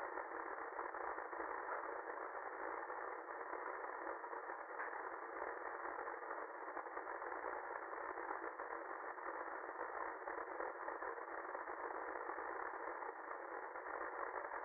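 Steady static hiss, thin and cut off at top and bottom like an open telephone line, holding level throughout.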